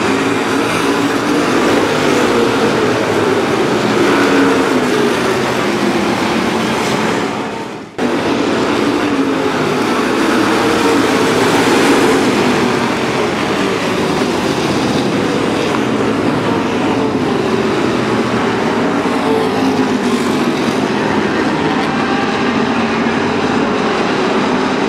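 A field of pure stock dirt-track race cars running at full racing speed together, a loud, continuous engine noise whose pitch rises and falls. About eight seconds in the sound briefly fades and cuts back in abruptly.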